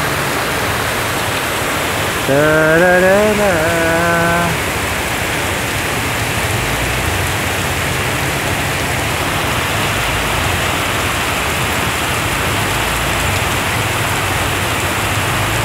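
Heavy downpour: a steady, loud hiss of rain pouring down onto the road and trees. A voice sings "da-da-da-da" for about two seconds near the start.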